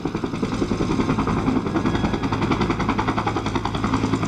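Bell UH-1 Huey helicopter flying low, its two-blade main rotor beating in rapid, even thumps over the steady run of its turbine engine.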